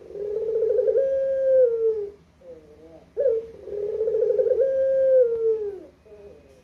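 Barbary dove (ringneck dove) cooing: two long, low coos, each opening with a rolling trill, then held and falling away at the end, with short soft notes before each.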